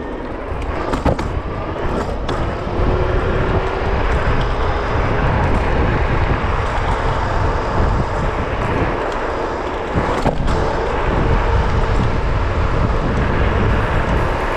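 Wind rushing over the microphone and tyre rumble from a Varla Pegasus electric scooter ridden fast downhill. A faint steady whine runs under it, and a few sharp knocks come about a second in, two seconds in and ten seconds in.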